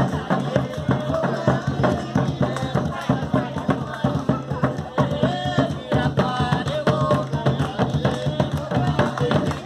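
Batuque folk music: voices singing over percussion that keeps a quick, steady beat.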